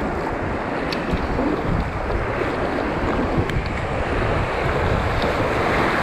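Rushing river water of a whitewater rapid around a kayak, mixed with wind noise on the microphone; the rush grows louder toward the end as the kayak moves into the rough water.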